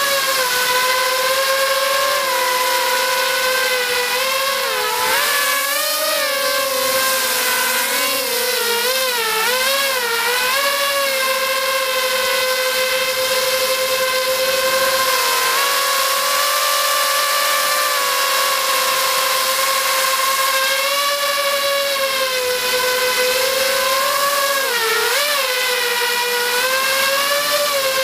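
FPV racing quadcopter's brushless motors and propellers whining, heard close up from on board. The pitch wobbles rapidly up and down several times as the throttle changes, about a third of the way in and again near the end, and holds steadier in between.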